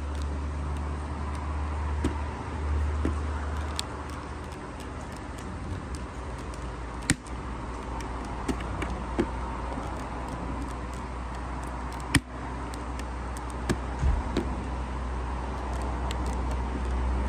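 A few sharp clicks from a Schuberth C5 motorcycle helmet's visor being handled and pressed at its closing mechanism, the loudest two about seven and twelve seconds in, over a steady low rumble and hum.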